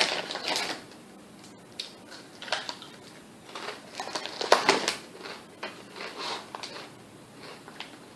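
Crunching and chewing wavy Lay's Mango Salsa potato chips, in irregular bursts of crisp crackles with short pauses between bites.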